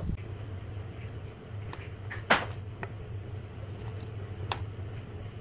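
A few sharp metallic clinks from a steel ladle knocking against an aluminium pressure cooker pot while stirring, the loudest about two seconds in, over a steady low hum.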